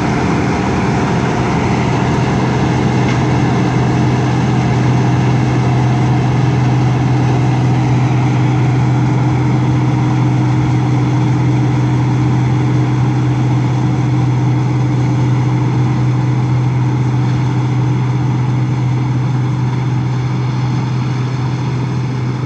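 Claas Dominator 98S combine harvester running steadily while threshing wheat: a constant engine hum with the rushing noise of the threshing machinery and straw spreading out the back. It gets slightly fainter near the end as the combine drives away.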